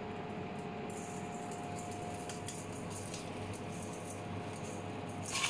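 Dry jerk seasoning and mixed herbs shaken from a small tub onto fried nuggets in a stainless steel bowl, a faint light patter that starts about a second in, over a steady background hum.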